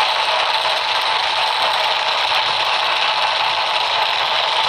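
Fireworks crackling in a dense, steady rattle, with no separate bangs standing out.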